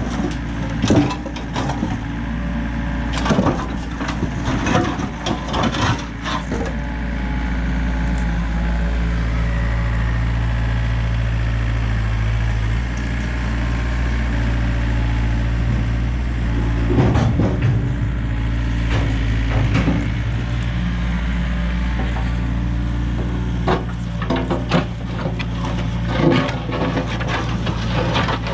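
Excavator's diesel engine running steadily under hydraulic load, with knocks and crunches of broken concrete slabs in the bucket. The knocks cluster in the first several seconds, come once in the middle and come again over the last five seconds.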